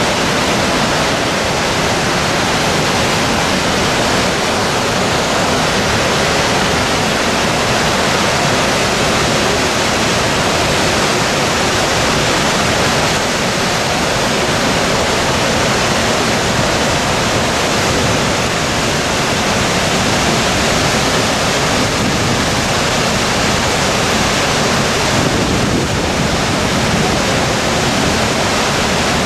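Large waterfall pouring down a rocky gorge: a loud, steady rush of falling water.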